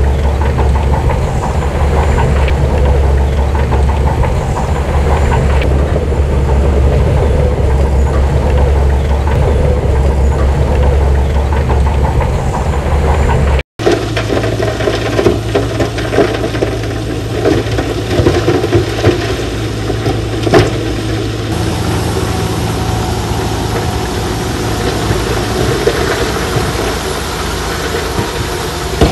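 Heavy earthmoving machinery's diesel engine running with a steady low rumble; after an edit cut about halfway through, an engine runs with rattling and a few sharp knocks.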